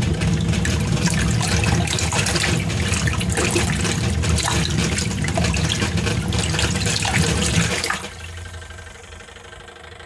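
RC-200 small two-tub washing machine's wash tub running, its motor humming under the slosh and splash of water being churned. About eight seconds in the motor stops and the churning cuts off, leaving a faint hum.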